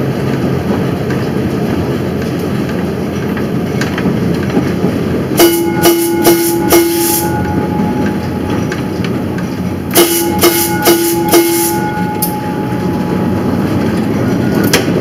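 Streetcar running along its track with a steady rumble of wheels and motor. Its gong is struck four times in quick succession about five seconds in, then four more times about ten seconds in, each stroke ringing on.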